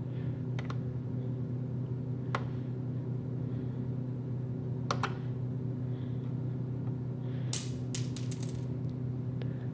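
Coins dropping through a vending machine's coin mechanism: a few single clicks, then a jingling clatter of coins near the end, over a steady hum.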